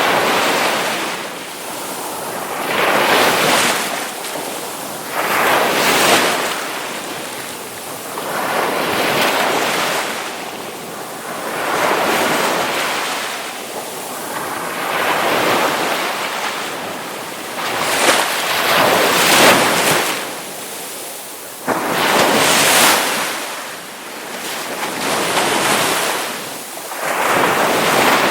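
Ocean waves breaking and washing in, one surge of surf every three seconds or so.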